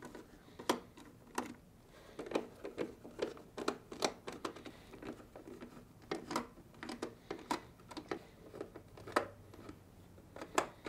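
Quarter-inch nut driver backing out the screws that hold a refrigerator's ice dispenser auger motor, with the screws handled: a scatter of small, irregular clicks and taps.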